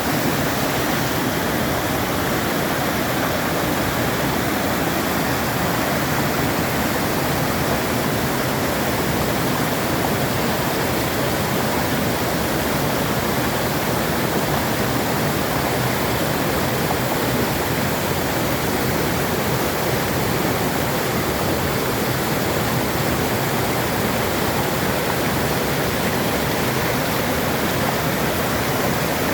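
Stream water rushing, a loud, steady, unbroken noise.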